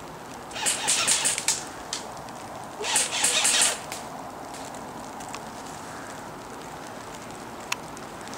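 Two short bursts of automatic airsoft gun fire, each about a second of rapid shots, the first just over half a second in and the second about three seconds in. A single sharp click near the end.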